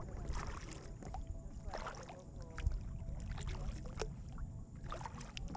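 Kayak paddling: water splashing and dripping off the paddle blades with each stroke, a few sharp knocks, over a low steady rumble. The loudest knock comes a little past halfway.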